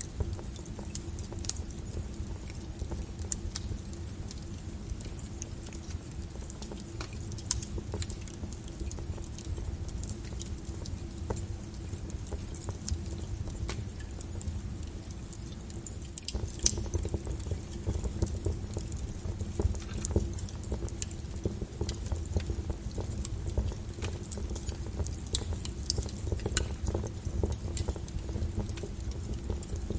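Crackling fire: sparse, irregular sharp pops and snaps over a steady low brown-noise rumble, the crackles a little denser and louder from about halfway through.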